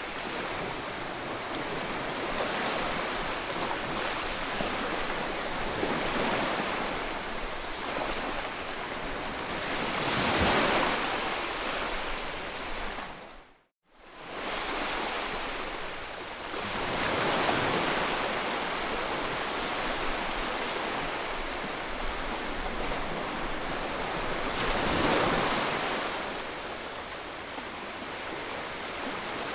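Ocean surf washing and breaking in a steady hiss, swelling into louder breakers about ten seconds in and again a few seconds before the end. Just before halfway it fades out to silence for a moment and comes back in.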